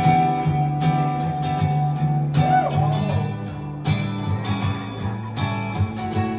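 A guitar playing a slow instrumental song intro: chords struck every second or so, their notes left ringing.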